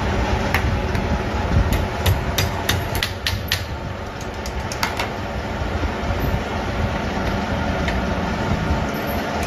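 Workshop machinery running steadily, with a scatter of sharp metallic clicks and taps, most of them bunched about two to three and a half seconds in.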